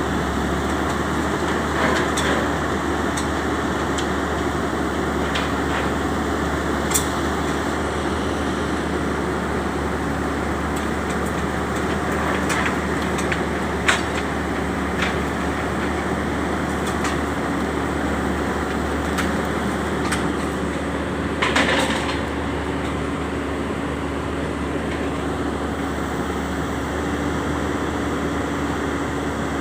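Diesel engine of a heavy XCMG drilling rig running steadily, with a few brief sharp knocks now and then.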